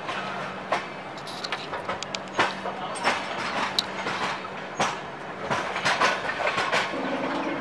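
Wheels of the Humsafar Express passenger train clattering over rail joints, heard from on board. Irregular sharp clicks sit over steady running noise and a low steady hum.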